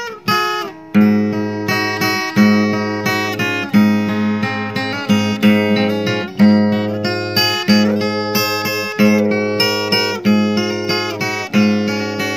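Background music of strummed acoustic guitar, the strums falling in a steady rhythm.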